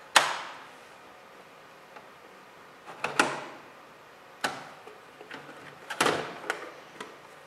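Clicks and knocks of a DVD drive being unlatched and lifted out of a Dell desktop's drive bay. A sharp click comes just after the start, single knocks about three and four and a half seconds in, and a clatter of several knocks about six seconds in as the drive comes free.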